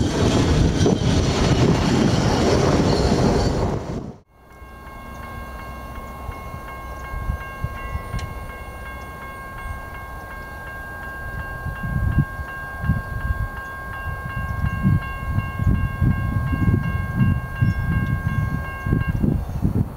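Railroad crossing bell ringing steadily while the crossing gates lower, falling silent once they are down near the end. Before it, a loud rushing noise cuts off abruptly about four seconds in.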